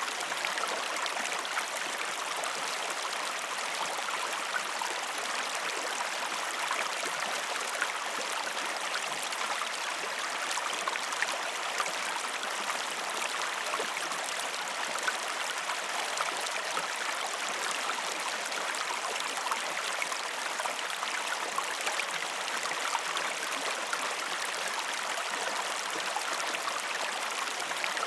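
Waterfall water falling and splashing in a steady, even rush.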